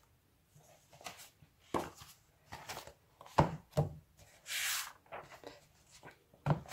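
A textbook being handled and leafed through: several sharp knocks and taps as the book is moved, and a papery swish of pages turning about four and a half seconds in.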